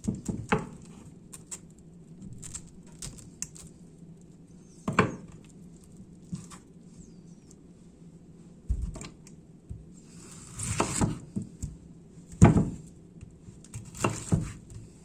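Things being handled in a small room: scattered light taps and knocks, a few heavier thuds, and a brief rustling scrape about ten seconds in.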